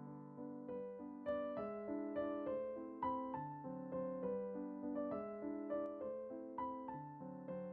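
Background music: a gentle piano melody, single notes struck in a steady rhythm, each ringing and fading.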